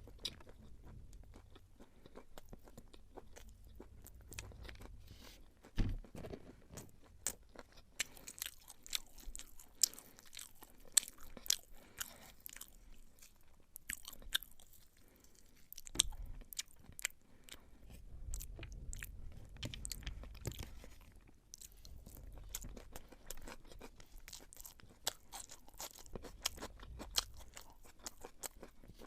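Close-up eating sounds: a person chewing beef pilau, with many small sharp mouth clicks and wet smacks and an occasional louder knock.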